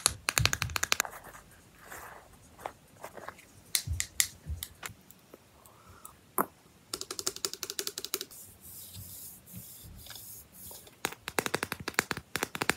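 Fast fingernail tapping in bursts, first on the lid of a small metal balm tin and near the end on a paper card, with scattered single clicks and light scratching between the bursts.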